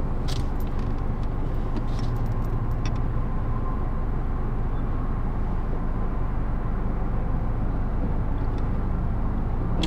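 Car engine idling, heard from inside the cabin: a steady low hum, with a few faint clicks in the first few seconds.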